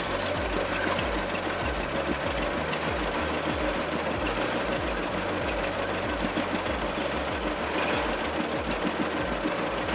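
John Deere two-cylinder tractor engine running steadily with an even beat, turning its flat-belt pulley to drive a belt-powered machine.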